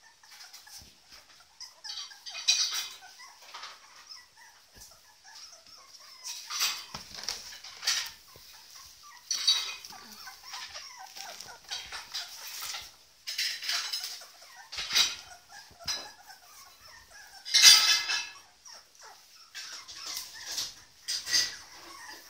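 20-day-old puppies squeaking and whining in repeated short, high-pitched calls, the loudest a little over three-quarters of the way through.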